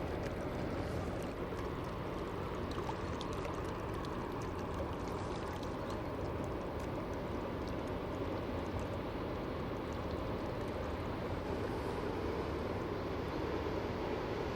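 Steady low engine drone of a passing cargo ship, with a constant rushing wash over it.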